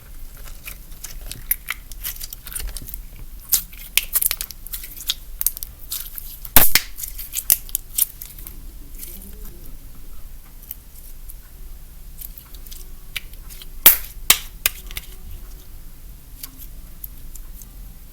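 Old slime that has gone stiff being squeezed and stretched by hand, giving scattered sharp pops and crackles. The loudest pop comes about six and a half seconds in, and another near fourteen seconds.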